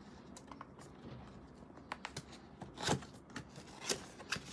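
Cardboard packaging box of an RGB fan kit being pried open by hand: faint scraping and rustling of the lid and inner flap with a few sharp taps, the loudest about three seconds in.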